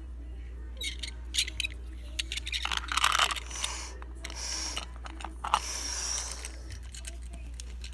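Light clicks and knocks of a die-cast toy monster truck handled against a plastic playset, followed by a few seconds of breathy rushing noise that is loudest in the middle.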